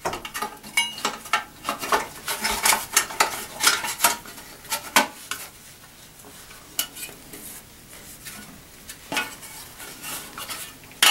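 Bathroom exhaust fan parts, plastic and metal, clicking and rattling as they are handled and fitted together. Rapid clatter for the first few seconds, then scattered clicks.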